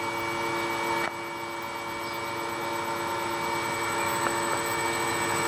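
Electric motor run from a repaired Powtran variable frequency drive, its speed being turned up at the low end of the range, from about 7 to about 13 Hz. It gives a steady whine of several fixed tones over a hum that grows slowly louder, with a single click about a second in. The motor is running smoothly on the repaired drive.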